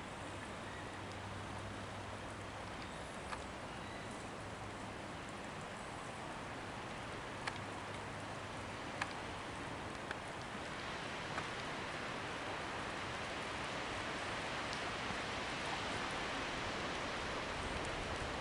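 Steady outdoor hiss, growing a little louder about halfway through, with a few faint clicks scattered through it.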